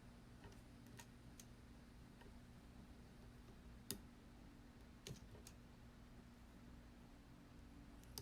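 Near silence: a faint steady low hum of room tone with a few small, isolated clicks, the clearest about four and five seconds in.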